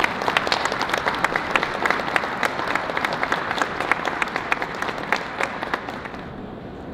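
Audience applauding with many hands clapping. The clapping thins out and dies away about six seconds in.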